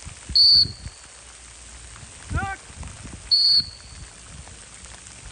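Two loud, short, high whistle blasts about three seconds apart, with a single goose-like honk between them.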